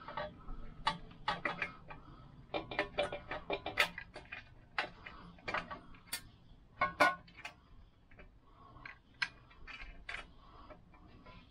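Irregular light metallic clicks and taps of a small hand tool working a screw into the metal engine cowling of a Lambretta scooter engine, the screw awkward to reach behind the exhaust. The clicks come thickest in the middle, with the loudest around four and seven seconds in.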